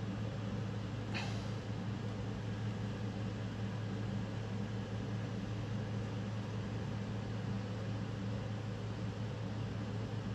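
Steady low background hum with an even hiss, like a running machine in a small room; a brief falling swish about a second in.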